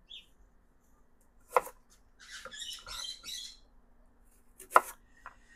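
Two sharp taps about three seconds apart, with light scratchy scuffling between them, as a piece of raw carrot is tossed onto a concrete floor for a small dog.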